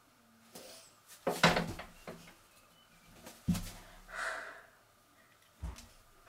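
Short knocks and thumps from a man's hand and body movements, the loudest about a second and a half in, with a breathy open-mouthed vocal sound just after four seconds.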